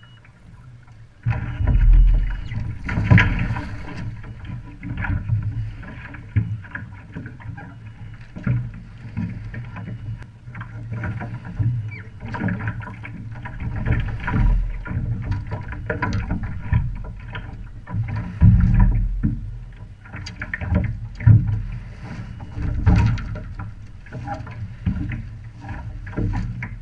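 OK Dinghy sailing under way: uneven rumbling wind and water noise on the boat-mounted microphone, with irregular knocks and slaps from the hull and rigging. It starts suddenly about a second in.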